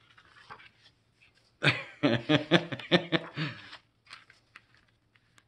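A man laughing: a burst of chuckles about two seconds long in quick rhythmic pulses, followed by a few faint clicks.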